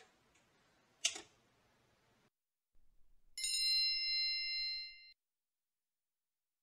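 Two sharp clicks, then a single bell-like timer ding that rings for about a second and a half, signalling that the baking is done.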